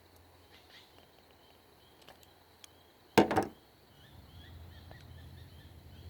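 Pliers snapping shut on a solid-core cat5 conductor to cut and strip its insulation: one sharp clack about three seconds in.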